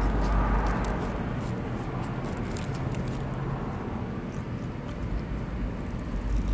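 Outdoor traffic noise, a steady low rumble, with faint clicks from hands handling food close to the microphone in the first few seconds.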